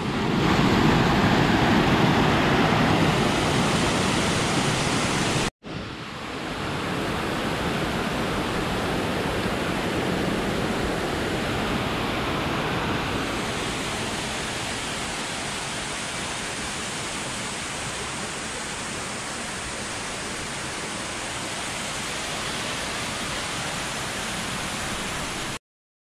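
Steady rushing of a waterfall's water pouring over rock. It drops out for a moment about five seconds in and comes back a little quieter.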